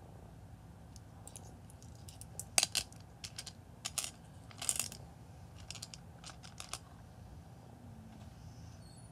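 Small wet beach stones clicking against each other and against a glass dish as fingers pick through them: a scattered run of sharp clicks that dies away after about seven seconds.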